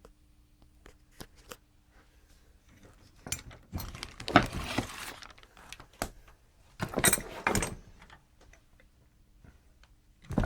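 Small hard parts being handled on a workbench: a few light clicks, then two bursts of clattering and rattling, the first about three seconds in and the second about seven seconds in, and a sharp click near the end.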